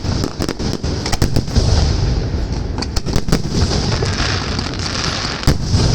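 Fireworks display: a rapid, irregular string of sharp bangs and crackles over a continuous low rumble of shells bursting.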